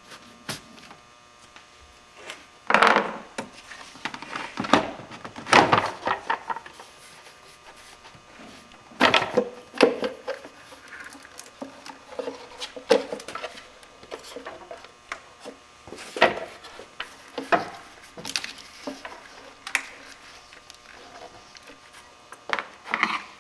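Hand work on a plastic air-intake assembly: a screwdriver on a hose clamp, and the plastic air cleaner lid and intake duct knocking, rattling and rubbing as they are worked loose and lifted off. The clunks come irregularly over a faint steady hum.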